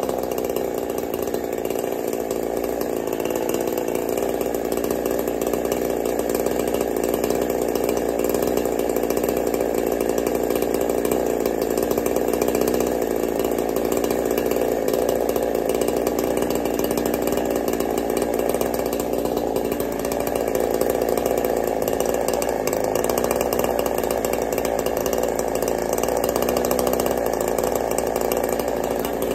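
Ported Neotec NH872 two-stroke chainsaw, a 372-platform saw, running steadily at an even speed on its first start after assembly, on carburetor settings that were never touched.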